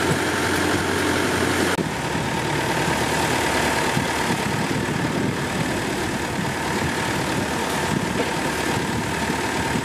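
Engine of an asphalt paving machine running steadily during road resurfacing. The sound changes abruptly about two seconds in.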